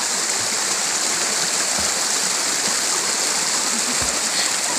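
Shallow stream running over rocks with a steady rushing hiss, and light splashing from someone swimming in it.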